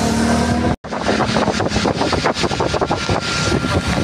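Road and engine noise of a moving vehicle heard from on board, a steady rush broken by a brief drop-out just under a second in. A thin steady whine joins about a second and a half in.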